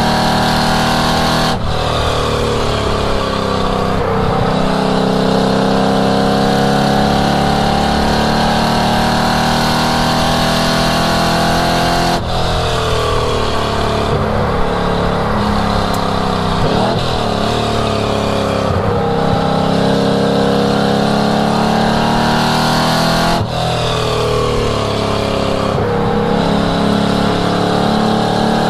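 1967 Ford Mustang's engine driven hard on a race track, its note rising and falling with throttle and revs. Sharp breaks in the note come about a second and a half in, near the middle and about four fifths of the way through, then the revs climb again.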